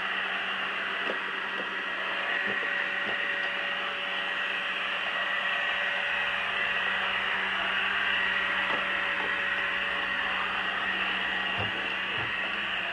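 Pure Clean robot vacuum cleaner running across a hard floor: a steady motor-and-fan whir with a high whine, and a couple of light knocks near the end as it bumps against a wooden cabinet.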